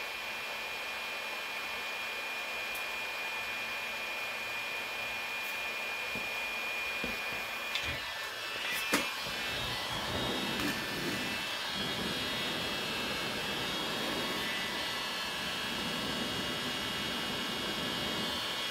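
Electric heat gun running steadily, its fan blowing hot air onto a cracked plastic bumper, with a high whine over the rush of air. A sharp click comes about nine seconds in, after which the whine sits higher.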